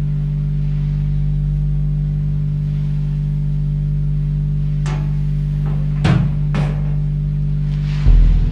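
Dark ambient soundtrack music: a steady low drone of held tones, broken by a few sharp hits about two-thirds of the way through and a heavy low boom near the end.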